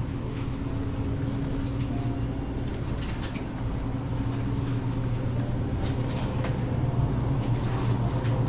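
Steady low hum of a supermarket's background noise, with a few faint clicks over it.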